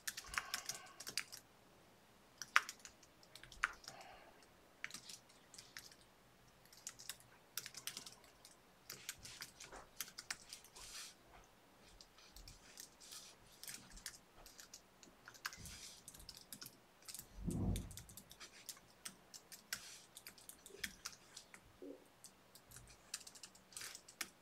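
Faint, irregular keystrokes on a computer keyboard. About two-thirds of the way through there is one brief, louder low muffled sound.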